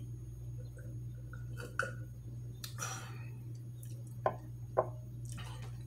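Drinking from a glass: faint gulps, a breathy exhale about three seconds in, then two light knocks of the glass on the table about half a second apart, over a steady low hum.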